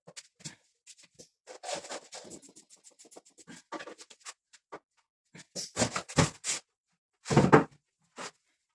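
Plastic levelling wedges being handled and knocked into place under a washing machine: a string of clicks, scrapes and knocks, with heavier thumps about six and seven and a half seconds in.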